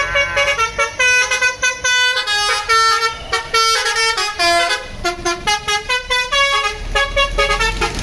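Tour bus's basuri telolet horn, a multi-tone musical air horn, playing a quick tune of short notes that step up and down in pitch, dying away near the end.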